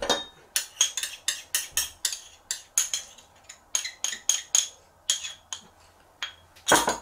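Small ceramic cup tapped again and again against the rim of a plastic bowl, about four clinks a second, shaking the last drops of olive oil out over potato wedges. The tapping thins out, and a louder knock comes near the end.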